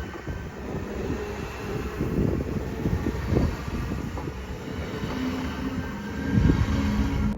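Train running, a continuous low rumble with irregular knocks and clatter, and a steady low tone that comes and goes in the last two seconds.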